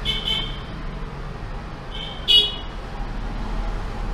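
Vehicle horn honking twice at the start and twice more about two seconds in, the last honk the loudest, over steady street-traffic noise and a low hum.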